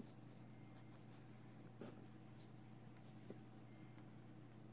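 Near silence: faint, brief rustles of hands handling and twisting knitted wool strips, over a low steady hum.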